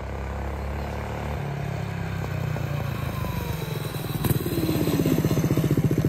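Honda GX160 single-cylinder four-stroke engine on a mini bike, running under way and growing steadily louder as the bike approaches, its separate firing pulses distinct in the last couple of seconds.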